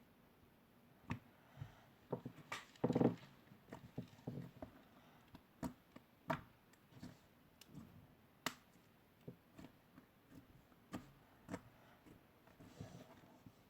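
Slime being squeezed and pressed by hand, giving irregular sharp clicks and pops, with a longer, louder burst of squelching about three seconds in.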